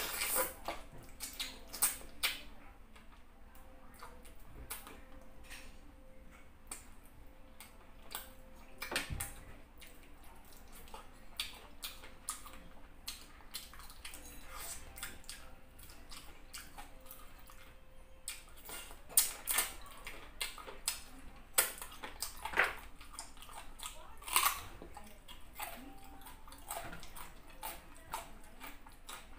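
Close-up mouth and hand eating sounds: wet chewing, lip smacks and sticky squelches as chicken in soup and fufu are eaten by hand. The sharp clicks and smacks come thicker and louder in the second half.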